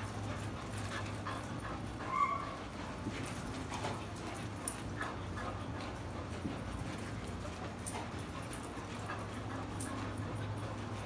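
Two dogs play-fighting: scuffling paws on dirt and small knocks, with one short yelp about two seconds in. A low steady hum runs underneath.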